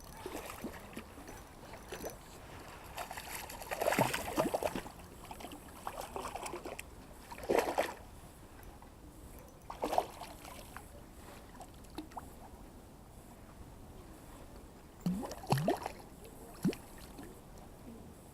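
Water splashing and sloshing in irregular bursts, a few seconds apart, with the loudest around the middle and a pair near the end.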